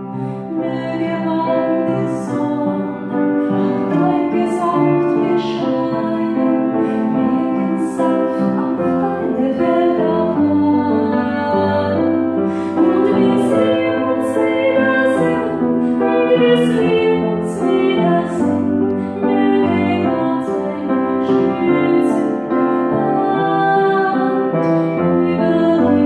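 A woman singing a slow song with piano accompaniment.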